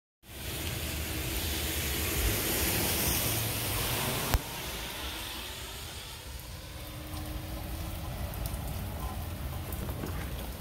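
Steady rain falling, a hiss that drops a little after a single sharp click about four seconds in.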